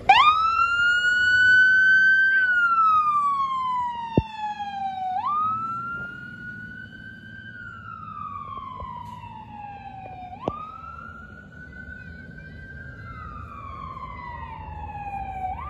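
Ambulance siren switching on in wail mode: the pitch jumps up, climbs, then falls slowly, repeating about every five seconds. It is loudest at the start and grows fainter after about six seconds as the ambulance pulls away.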